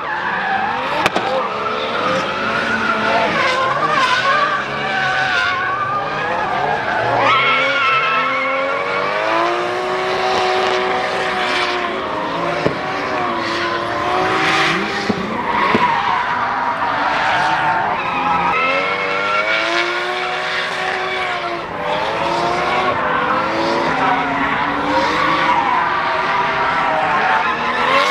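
Drift cars' engines revving up and down again and again, with tyre squeal and skidding.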